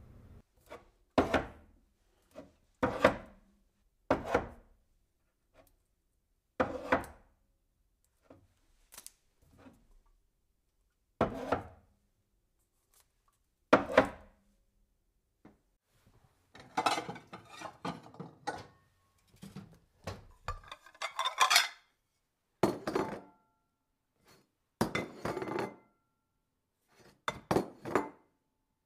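Kitchen handling sounds: irregular clinks and knocks of a cooking pot, dishes and utensils, a dozen or so separate strikes with quiet gaps between them and a busier run of clattering in the second half.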